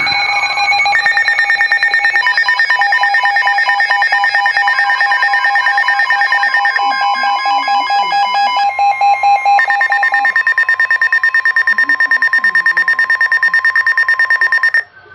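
Electronic alarm tones from weather alert radios sounding for a flash flood warning. Several tones at different pitches beep rapidly at the same time. Some start and stop partway through, and all cut off together just before the end.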